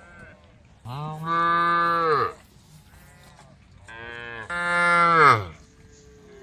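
A cow mooing twice: two long, loud calls of about a second and a half each, the second about four seconds in. Each holds a steady pitch and drops as it ends.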